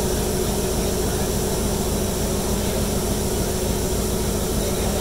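Coal-fired steam locomotive standing in steam: a steady roar and hiss with a constant hum under it.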